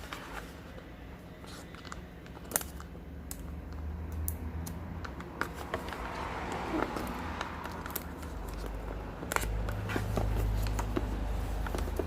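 Handling of a smartphone's box and packaging: scattered clicks and taps with soft rustling and scraping, over a steady low hum.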